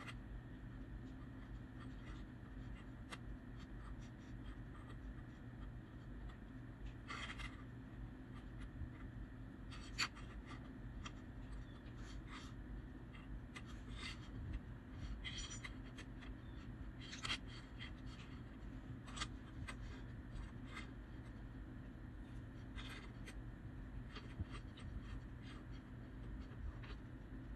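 Faint handling noise: scattered light clicks and short rubbing scrapes, the sharpest click about ten seconds in, over a steady low hum.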